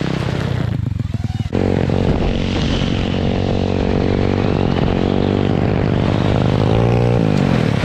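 Pit bike's small single-cylinder engine running hard. Its sound dips and breaks up briefly about a second in, then comes back loud and steady, and the pitch drops sharply near the end.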